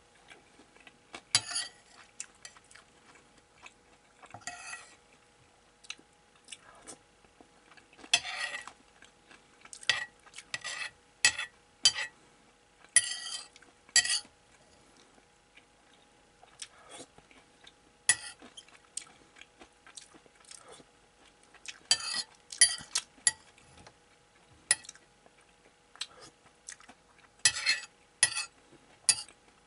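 Metal spoon scraping and clinking against a ceramic plate in irregular short strokes, gathering up the last crumbs of hamburger.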